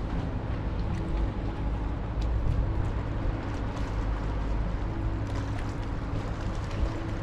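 Steady low rumble of a car ferry's engines and propulsion under way, with water noise and light wind on the microphone.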